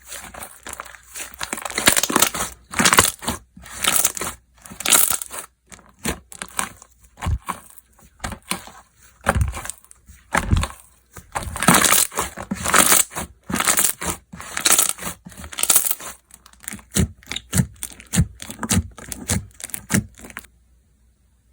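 Slime being squished, pressed and stretched by hand, giving irregular bursts of crackling and popping with a few low squelches, which stop suddenly about 20 seconds in.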